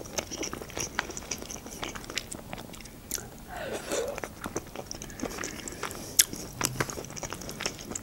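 A person chewing a mouthful of soft baked chicken-and-mushroom julienne close to the microphone, with many short sharp clicks from a metal fork in a foil baking tray.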